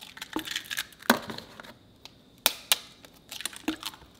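Raw eggs cracked one after another into a plastic pitcher: a string of sharp, irregular shell cracks, about five loud and several softer, with small crunches of shell.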